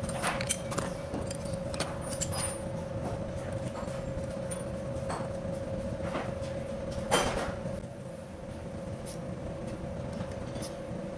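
Scattered light clicks and knocks of a tool and parts being handled at the front of an engine block, with one louder knock about seven seconds in, over a steady hum.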